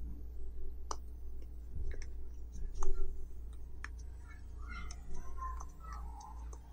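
Bubbles of an orange silicone pop-it fidget toy being pushed through under a fingertip, giving a string of soft, irregular pops, roughly one a second.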